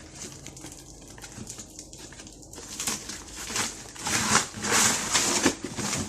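Printer shipping box and its packaging being opened and handled: rustling and scraping that starts about three seconds in and grows louder in irregular bursts.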